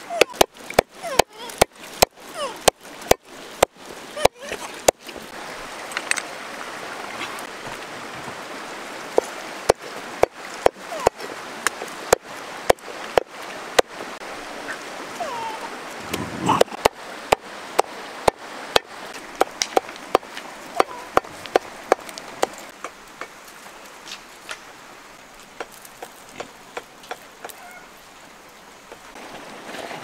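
Knife chopping pork on a wooden block: quick runs of sharp strikes, about three a second, that pause and start again several times.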